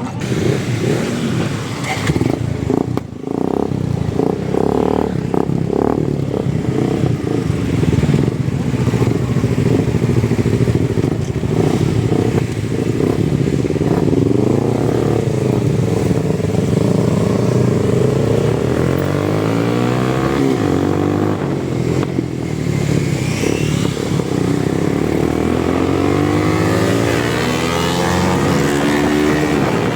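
Suzuki Gixxer single-cylinder motorcycle engine running with its exhaust DB killer removed, revved repeatedly so the pitch rises and falls, with the revving sweeps coming more often in the second half. There are a few knocks in the first several seconds.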